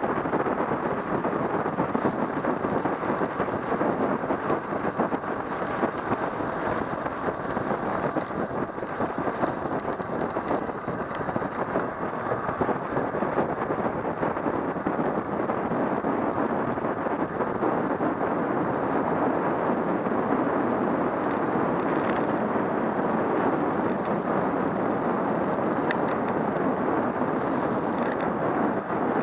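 Steady rush of wind over the microphone of a camera on a bicycle at speed on a downhill road, with road noise mixed in.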